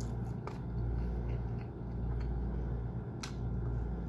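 Faint scattered clicks and smacks of chicken being picked apart by hand and chewed, the sharpest about three seconds in, over a steady low hum.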